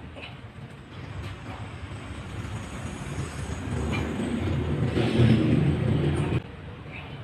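A low rumbling noise that grows louder over several seconds and cuts off abruptly about six seconds in.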